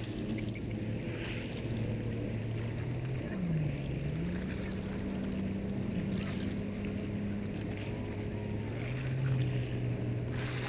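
Motorboat engine running at a steady pitch, dipping and coming back up about three and a half seconds in and rising a little near the end, under wind and water noise.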